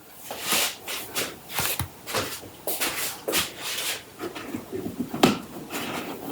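Handling noise as packaging and small printer accessories are unpacked: irregular rustles with light clicks and taps, one sharper click about five seconds in.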